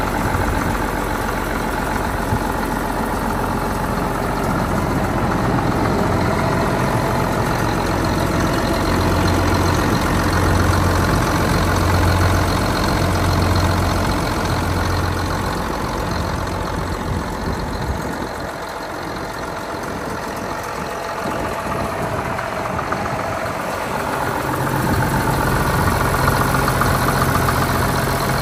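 Allis-Chalmers 7040's turbocharged six-cylinder diesel engine idling steadily, growing a little quieter for a few seconds past the middle.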